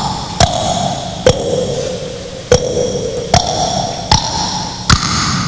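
Beatboxer's vocal percussion through a handheld microphone: six sharp mouth clicks about a second apart, each followed by a held hummed tone that shifts in pitch from one click to the next.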